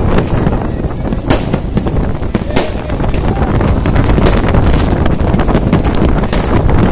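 Fireworks display going off: several sharp bangs and cracks from aerial shells, over a constant heavy low rumble of strong wind buffeting the microphone.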